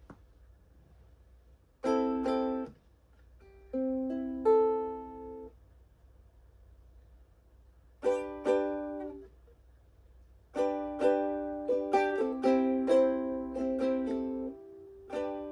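Ukulele chords strummed in short, separate phrases with pauses of a second or two between them. About two-thirds of the way in comes a quicker run of strums.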